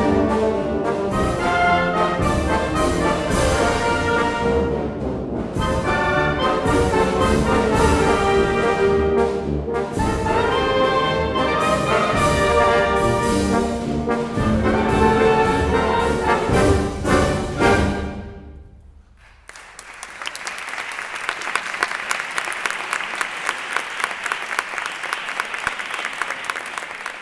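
Wind band of brass and woodwinds playing the final bars of a pasodoble, finishing about two-thirds of the way in. After a brief pause, an audience applauds steadily to the end.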